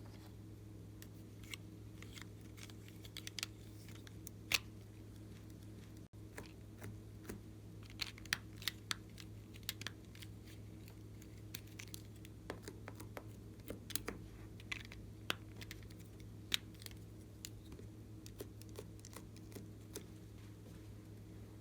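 Glossy slime being pressed and stretched by hand, giving irregular small clicks and pops over a steady low hum.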